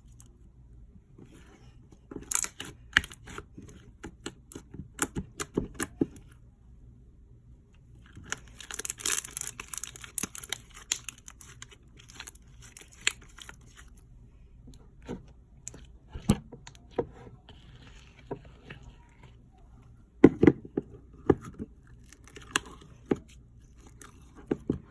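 Slime being squished and poked by hand, giving bursts of crackling and popping clicks, with a denser stretch of crackling partway through and scattered sharp pops.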